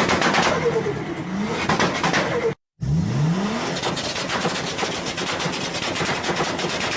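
Turbocharged car engines revving, each blip followed by the rapid fluttering chatter of turbo flutter (compressor surge) as the throttle closes. It breaks off briefly about two and a half seconds in, and a second engine revs up.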